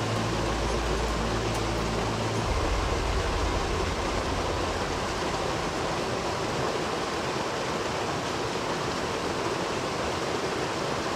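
Mountain torrent rushing, a steady even hiss of running water. A low rumble on the microphone fades out about two and a half seconds in.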